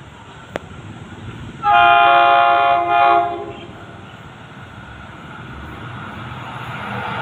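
Horn of an approaching diesel railcar, sounding one long blast with several tones together followed at once by a short one, about two seconds in. After it the rumble of the train grows steadily louder as it comes closer.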